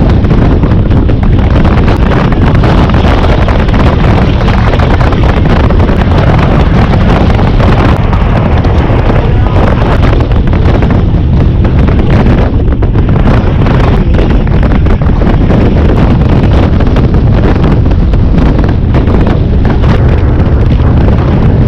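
Loud, constant wind noise buffeting the microphone of a camera mounted on a touring motorcycle cruising at road speed, with the bike's riding noise underneath.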